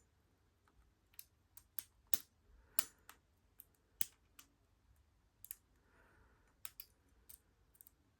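Small, sharp metallic clicks and taps at irregular intervals: a lock pick working the pins inside the keyway of a Squire LN4 padlock while under tension.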